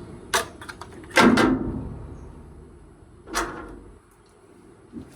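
A few knocks and clunks from a Whirlpool dryer's parts being handled. There are light clicks early, the loudest clunk about a second in with a short ringing tail, and another knock a couple of seconds later.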